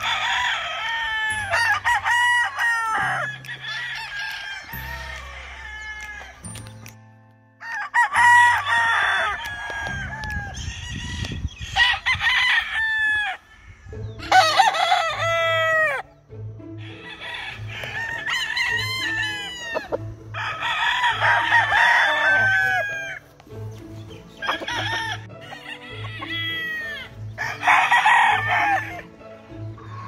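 Gamefowl roosters crowing again and again, the crows falling in pitch at their ends and sometimes overlapping, with background music carrying a steady low beat underneath.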